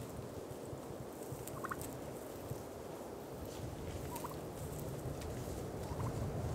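Wild turkey calling: three short calls, about two seconds apart, over a low steady rumble.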